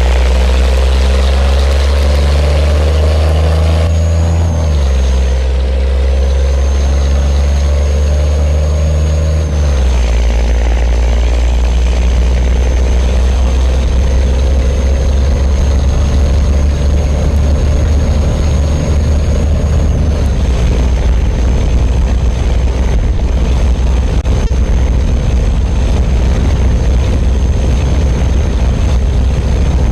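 Scania truck's diesel engine rumbling under load as it pulls. It is a loud, deep, steady drone with a thin high whistle above it from about four seconds in, and the low note changes abruptly twice, about four and a half and ten seconds in.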